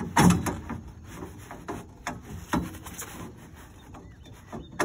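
Camouflage fabric and its rail being pulled and slid along the boat blind's metal frame rail: rubbing and scraping, with a few short knocks, the loudest just after the start.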